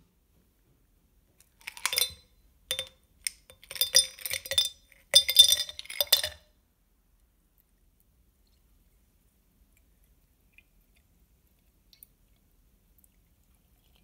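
Ice cubes dropped by the handful into a glass mason-jar mug, clinking against the glass and each other in a quick run of sharp clinks lasting about five seconds.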